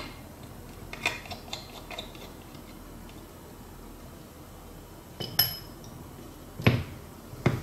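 Small metallic clicks and clinks of a precision screwdriver working tiny screws out of a phone's metal frame: a few light clicks in the first two seconds, a clink with a short high ring about five seconds in, and two louder taps near the end.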